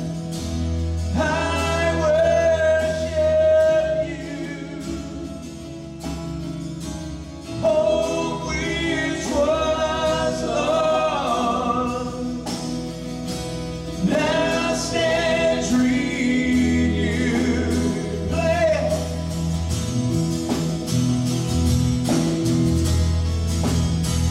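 Live worship music: voices singing a slow, sustained melody over steady instrumental backing with held bass notes.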